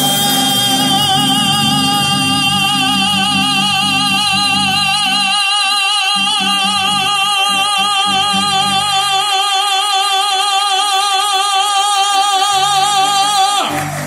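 A singer holds one long note with a wide vibrato for nearly fourteen seconds, ending just before the end, over a live band whose backing thins out in the middle and comes back in near the end.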